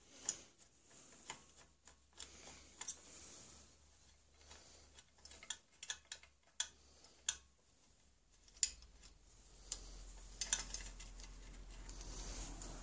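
Irregular small metal clicks and taps as a screwdriver turns out the side-plate screws of a flintlock rifle and the plate and screws are lifted from the wooden stock, with a denser rustle and clatter of handled parts near the end.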